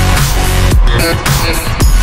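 Loud electronic dance music with a steady beat and a deep bass that sweeps down in pitch about once a second.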